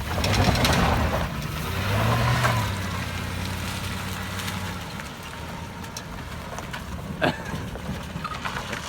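Chevrolet Silverado's 5.3 Vortec V8, an engine with a rod knock, revving hard under load. It surges twice in the first few seconds, then runs on more steadily and gradually quieter, with a sharp click at about seven seconds.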